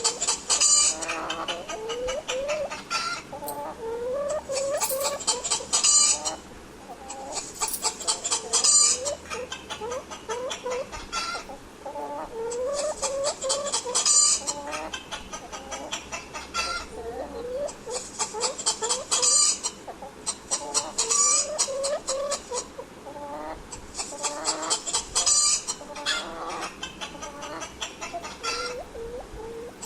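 Domestic hens clucking: many short rising clucks, repeated irregularly. A high, rapid trill comes and goes in spells of a second or two and is the loudest part.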